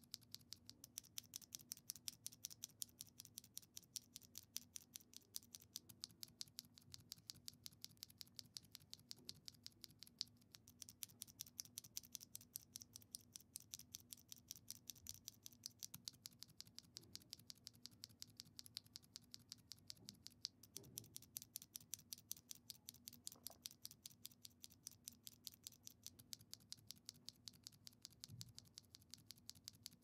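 Two loose Gateron Ink v2 linear switches pressed over and over between the fingers, one stock and one lubed and filmed, giving a steady run of quick, light clacks, a few each second.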